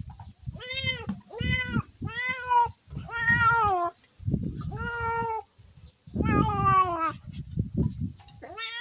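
Cat meowing over and over: about six separate meows, each arching up and down in pitch, two of them longer and drawn out, with a low rumble between them.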